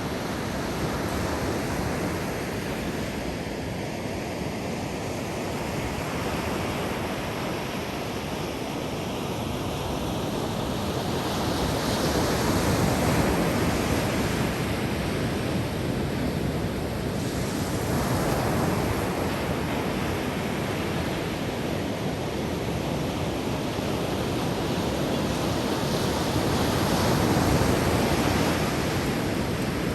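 Ocean surf washing onto a beach: a steady rush of breaking waves that swells louder several times, with some wind on the microphone.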